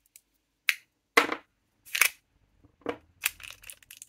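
Washi tape rolls and their clear plastic wrapping being handled: a few sharp separate clicks about a second apart, then a quick run of small crinkles and clicks near the end.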